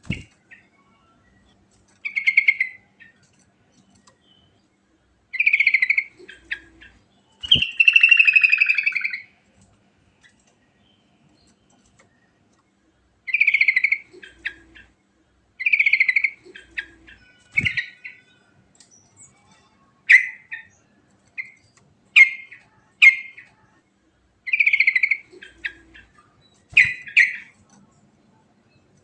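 Yellow-vented bulbul singing: short, bright warbled phrases repeated every two to three seconds, with one longer, fuller phrase about eight seconds in.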